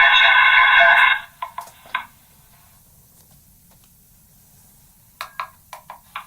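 Megaphone speaker playing back a recording of a spoken phrase that has been re-recorded many times, worn down into a tinny, garbled sound with no words left in it. It cuts off about a second in. A few scattered clicks follow, then a quiet gap, then a cluster of sharp clicks near the end.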